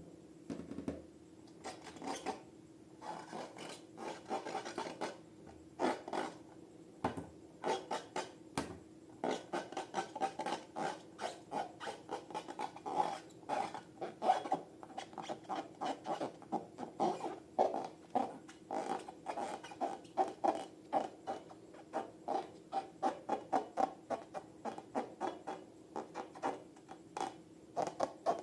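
Hands working slime, a quick run of short squishing, rubbing strokes that come faster after the first few seconds, over a faint steady hum.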